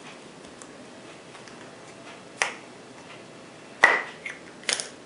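Flip-up lens cover caps on a rifle scope snapping open and shut: a few sharp plastic clicks, starting about two and a half seconds in, the loudest near four seconds.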